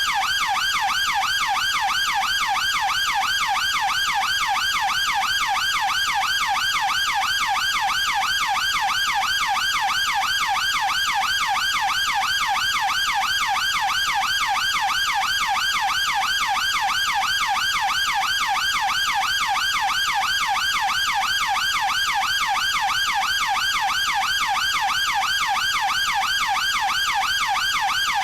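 UK police car siren sounding continuously, its pitch sweeping quickly and evenly up and down in an unbroken warble.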